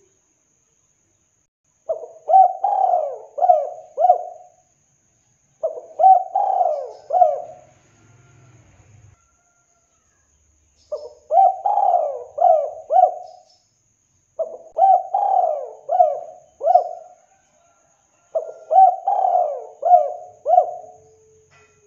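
Spotted dove cooing: five phrases, each a quick run of four or five coos whose notes bend up and down, separated by short pauses, with a longer pause in the middle.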